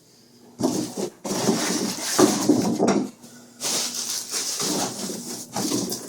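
Packaging rustling and scraping in two long spells as a subwoofer is pulled out of its cardboard box.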